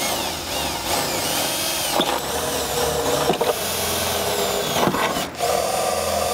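Milwaukee cordless drill boring an 11/32-inch bit into the sheet metal of a tailgate, with a high squeal from the bit cutting metal that rises and falls. The drilling stops briefly about five seconds in, then starts again.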